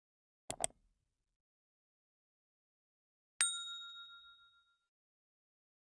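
A single bright ding about three and a half seconds in, ringing at a few clear pitches and fading over about a second, in otherwise dead silence. Two short clicks come near the start.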